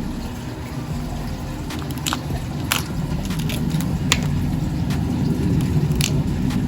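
Glass teardrop beads and a plastic bead case being handled: scattered light, irregular clicks over a steady low rumble of handling noise.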